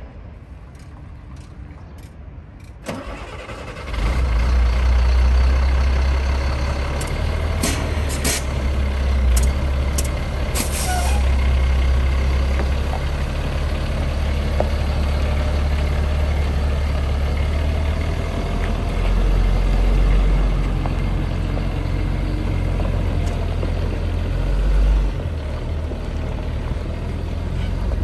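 Caterpillar C7 diesel engine of a Chevrolet 7500 bucket truck cranking and firing up about four seconds in, then running steadily with a deep rumble. A few short, sharp hisses and clicks come a few seconds after it starts.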